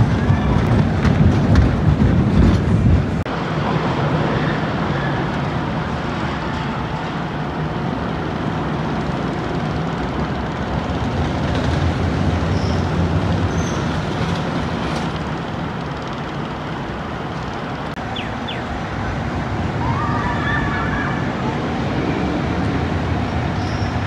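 Mine train roller coaster rumbling and clattering along its steel track. The sound changes abruptly about three seconds in, from a heavy rumble to a steadier, lighter running rumble with a low hum.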